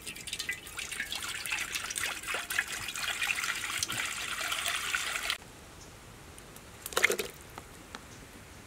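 Water pouring in a steady stream into an empty non-stick wok, splashing on the pan bottom as it fills, and stopping suddenly about five seconds in. A short sharp splash near seven seconds, as sliced ingredients drop into the water.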